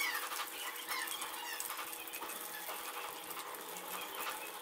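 Cornflour-coated chicken pieces frying in hot oil in a karahi: a steady sizzle with small pops.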